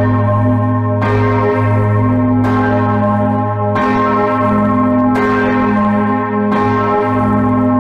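Large church bell tuned to A-flat (As°), cast by Eschmann, swinging alone, its clapper striking about every one and a half seconds while a deep hum rings on between strokes.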